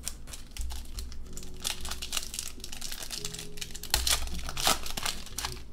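Shiny wrapper of a 2015 Panini Crown Royale football card pack being crinkled and torn open by hand: a dense run of crackles and rips, loudest about four to five seconds in.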